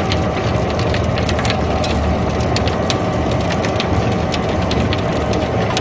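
Sawdust pellet mill running under load, making pellets: a steady, dense mechanical drone with many irregular sharp clicks and crackles.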